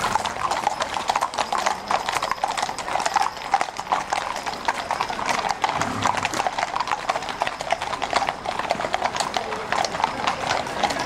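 Many horses' shod hooves clopping on a tarmac street as a group of riders walks past: a dense, continuous run of overlapping hoof strikes.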